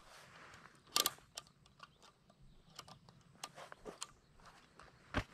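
A few sharp clicks and fainter ticks from handling a bolt-action chassis rifle, the loudest about a second in and another near the end.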